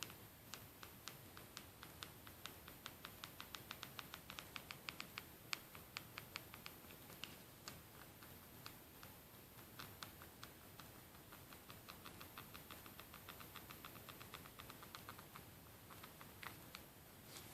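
Plastic body of a Xiaomi Redmi Note 2 smartphone creaking and crackling as it is handled: rapid, irregular runs of small clicks, thickest twice. This creaking case is a known flaw of this phone.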